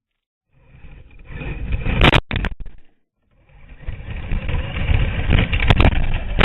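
Traxxas E-Maxx electric RC monster truck driving hard, its motors and tyres making a rough rumbling noise that builds up twice, with a few sharp clicks or knocks.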